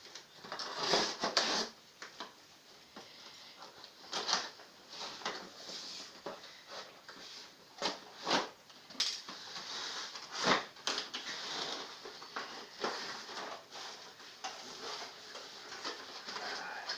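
Plastic packaging being cut open with scissors: a rustling crinkle of plastic with irregular sharp snips and knocks as it is handled, the loudest of them about a second, four, eight, nine and ten and a half seconds in.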